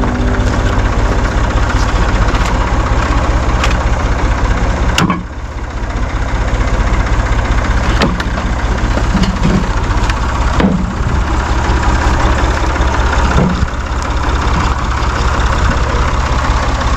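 Engine idling steadily, with a few sharp knocks over it.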